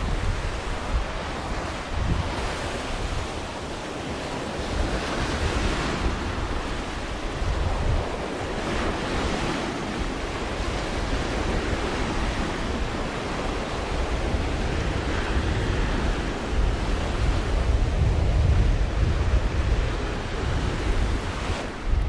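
Sea surf washing onto a beach in slow surges every few seconds, with wind buffeting the microphone in low rumbling gusts that are strongest near the end.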